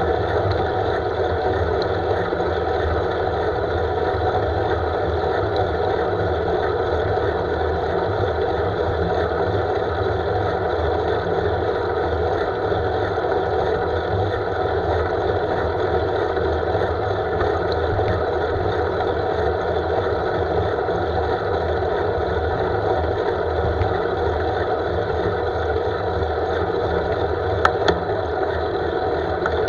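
Steady wind rush and road noise on a camera mounted on a road bike's handlebars while riding along an asphalt road, with a fluttering low rumble from the wind. A couple of sharp clicks near the end.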